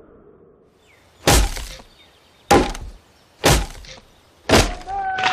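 An axe chopping into a tree trunk: four heavy strokes about a second apart. Near the end the trunk starts to crack and splinter as it gives way.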